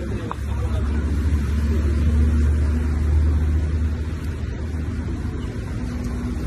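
Low rumble of a car engine, swelling for a few seconds around the middle and easing off, with a faint steady hum above it.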